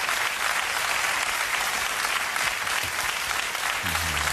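Studio audience applauding steadily, welcoming a talk-show guest.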